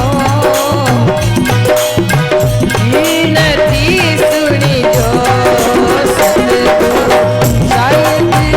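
Rajasthani folk bhajan music: a drum beats a steady rhythm under a bending melody line and a held tone.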